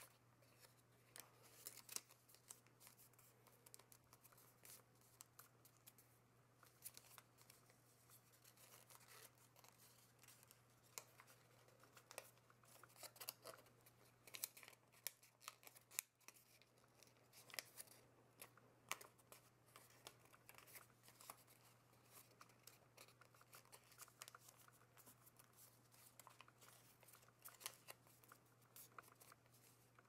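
Faint crackling and rustling of origami paper being folded and creased by hand, in many short, irregular crinkles over a low steady hum.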